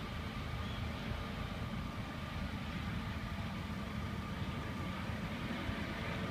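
Eurocopter EC135 T2+ twin-engine helicopter flying away at a distance: a steady low rotor rumble with faint steady whine tones above it.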